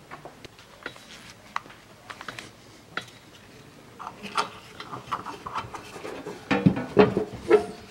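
Handling noise at a car's open fuel-filler door: scattered small clicks, taps and rubbing as a gloved hand works at the door's hinge and a drill is brought up to it, with a cluster of louder knocks about two-thirds of the way through.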